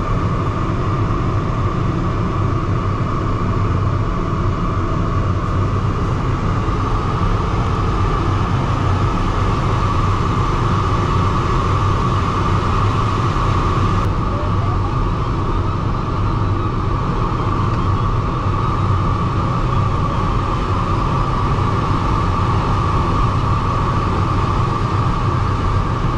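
Steady rush of airflow over a DG303 glider's canopy, heard inside the cockpit in flight, with a constant higher tone held above the low rushing.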